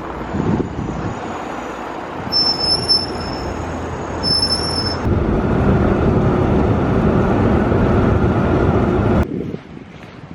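Steady rumble of a moving vehicle, with two brief high squeals about two and four seconds in; the sound cuts off suddenly near the end.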